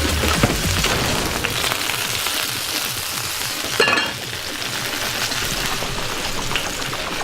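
Hot cooking oil sizzling steadily as food fries, with a single metallic clink about four seconds in.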